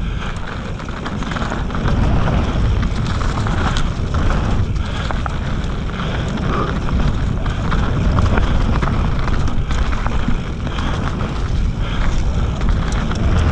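Mountain bike riding downhill on a loose dirt trail: wind rushing over the microphone, with the tyres rolling over dirt and leaves and quick rattling clicks from the bike.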